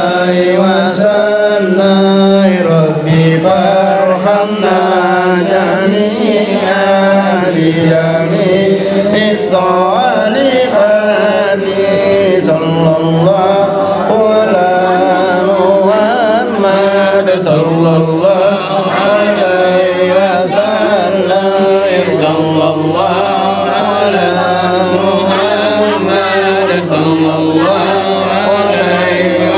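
Voices chanting Islamic devotional praise (shalawat) in a continuous, flowing melody.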